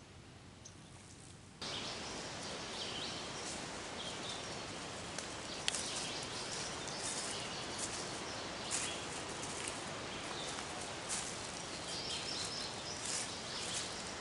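Woodland ambience: a steady outdoor background with faint, scattered bird chirps, and the light rustle and crackle of footsteps through dry leaf litter. It starts quieter for the first second and a half.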